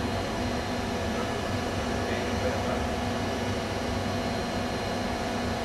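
Steady machinery hum with a few faint steady tones and no knocks or creaks.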